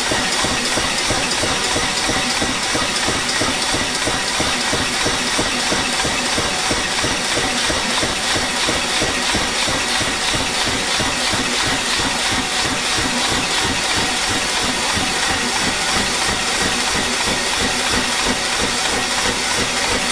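Massey pneumatic power hammer running steadily, its built-in air compressor pumping with a fast even pulse under a constant hiss of air.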